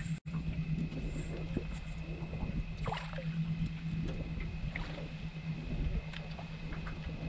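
A steady low machine hum on a boat, with scattered small splashes and knocks over it.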